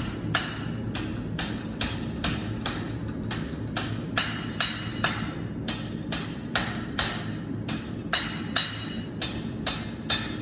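Hand hammer striking hot 3/8-inch steel bar stock on an anvil in a steady rhythm of about two to three blows a second, each blow with a short metallic ring, squaring up the corner of the bar's end. A steady low roar, typical of a running propane forge, lies underneath.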